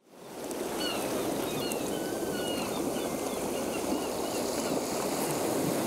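A steady rushing ambience fades in at the start, with a string of short, high, falling chirps like birdcalls over it between about one and three and a half seconds in.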